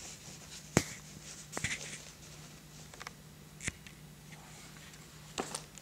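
Handling noise as a patent leather wallet is drawn out of a suede-like envelope dust bag: a few light knocks and soft rustles, the sharpest knock about a second in, over a faint steady hum.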